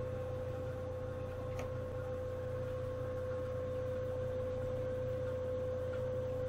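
Steady background hum with a constant, even whine held at one pitch, and a faint click about one and a half seconds in.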